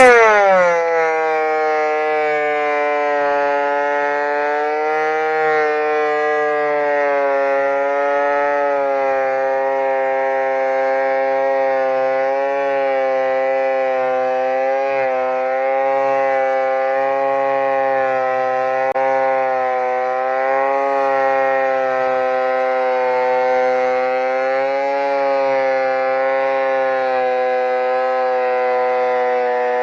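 Delta 22-540 12-inch portable planer's motor running under load. Its whine drops sharply in pitch right at the start as the cut bites into the board, then holds steady with slight wavering. The motor is bogged by a cut that the operator judges a little too deep.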